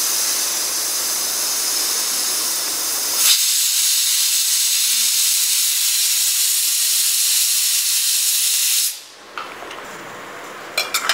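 A loud, steady hiss that thins to a higher hiss about three seconds in and cuts off suddenly near the end, followed by faint clatter.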